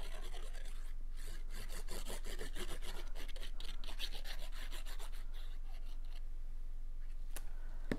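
The nozzle of a squeeze bottle of liquid glue scraping back and forth across cardstock as zigzag lines of glue are drawn, a quick run of scratchy rubbing strokes that eases off after about five seconds. A sharp click comes near the end.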